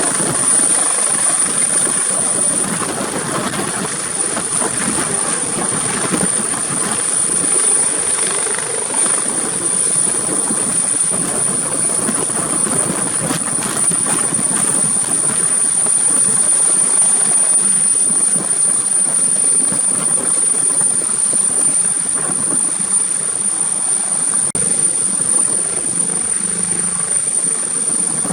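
Helicopter running close by as it comes in to land, a steady loud rotor noise with a thin, high-pitched whine held throughout.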